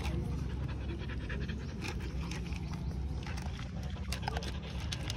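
Dog panting close by, with scattered light clicks of dry kibble being chewed and a steady low rumble underneath.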